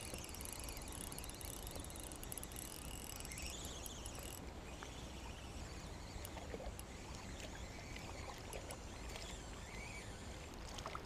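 Quiet, steady outdoor background noise, with the faint whirring and ticking of a Shimano Complex spinning reel winding in line during the first four seconds or so. A few soft clicks come near the end as a hooked perch is brought to the surface.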